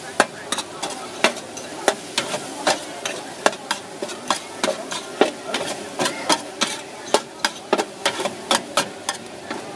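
Metal spatula clanking and scraping against a large wok as fried instant noodles and vegetables are tossed, with sharp irregular strikes about three a second over a steady sizzle.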